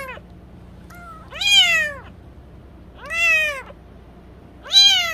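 Newborn kitten mewing loudly, a high call about every one and a half seconds, each one rising then falling in pitch; two full calls in the middle, the end of one at the start and another beginning near the end.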